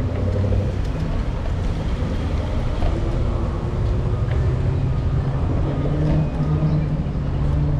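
Steady low rumble of road and wind noise while riding an electric kickboard (stand-up electric scooter) along a city street in traffic. A low hum grows stronger about two thirds of the way through.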